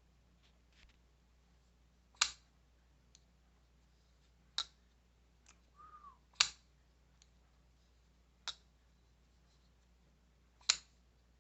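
Damned Designs Yokai folding knife being worked open and shut, giving sharp clicks. There are a few loud clicks and fainter ones between, irregularly spaced a second or two apart.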